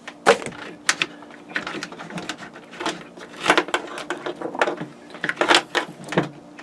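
Small parts and cables being handled on a workbench: irregular clicks, taps and rustles, over a faint steady hum.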